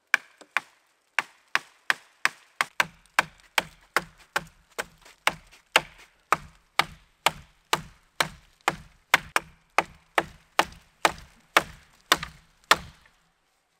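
A blade chopping into wood with rapid, evenly spaced strikes, about two a second, each a sharp crack over a dull thud; the chopping stops near the end.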